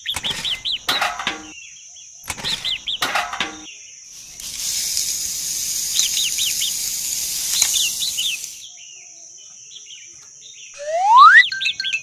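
Fine sand pouring out of two small toy buckets onto a sandy surface, a steady hiss lasting about four seconds, with a few sharp clicks before it as the buckets are handled. Birds chirp throughout, and near the end comes a loud rising whistle followed by a quick run of short beeps.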